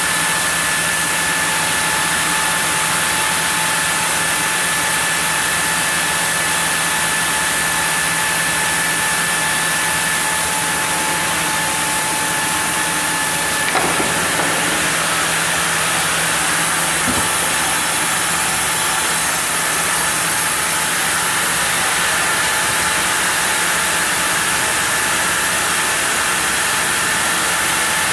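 Sawmill saw running steadily while milling a block of zelkova, with a constant whine that drops away about halfway through and a single knock at that point.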